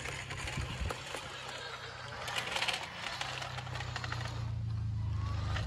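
Small electric gear motors of an RC model construction machine whirring with a steady low hum, with scattered clicks and scraping of soil; the hum grows louder near the end.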